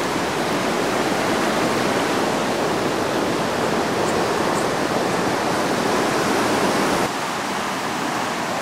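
Muddy floodwater of a swollen river rushing steadily, dropping a little in level about seven seconds in.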